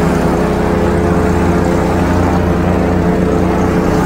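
Airboat's engine and air propeller running steadily at an even pitch while under way.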